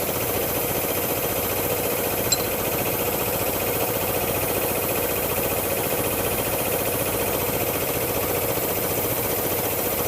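Sanborn air compressor running steadily, pumping up pressure with no knocking now that its loose flywheel set screw has been tightened. A single sharp click sounds about two seconds in.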